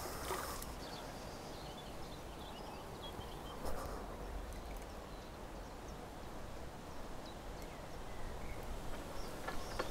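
Steady low rumble of wind on the microphone outdoors, with one soft knock about four seconds in.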